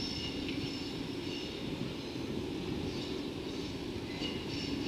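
EF65 DC electric locomotive hauling a train of rail-carrying Chiki flatcars, approaching slowly: a steady low rumble, with thin high-pitched tones coming and going.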